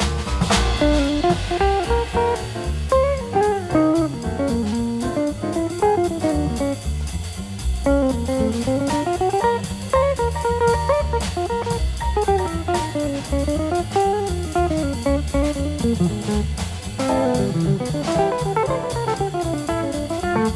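Jazzy background music: a plucked guitar melody rising and falling over bass and a drum kit.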